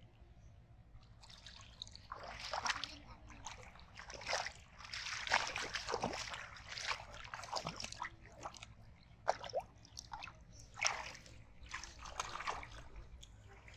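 Shallow muddy water splashing and sloshing in irregular bursts, stirred by hands and feet wading and grabbing in it.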